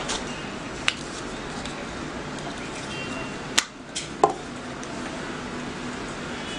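A handful of sharp clicks and knocks from a hard-shell glasses case being handled and opened and plastic spectacle frames taken out, the loudest around the middle, over a steady hiss.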